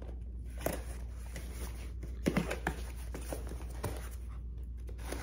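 CRKT Squid folding pocketknife cutting open a shipping package: scattered scrapes, clicks and rustles as the tape is slit and the box handled, the sharpest about two seconds in.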